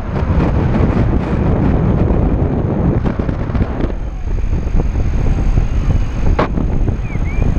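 Wind buffeting the camera microphone during a paraglider flight: a loud, steady rumble of rushing air.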